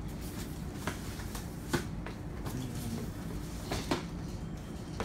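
A few soft knocks and clatters of objects being handled, over a steady low hum.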